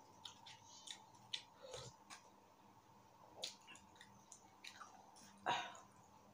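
Soft sounds of eating ice cream with a plastic spoon from a Dairy Queen cup: scattered small clicks and scrapes of the spoon, and wet mouth sounds. One louder click comes about five and a half seconds in.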